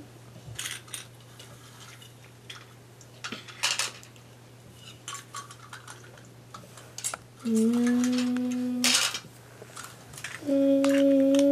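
Plastic toy construction vehicles and pieces clicking and clattering as they are handled, with a child humming two long held notes in the second half.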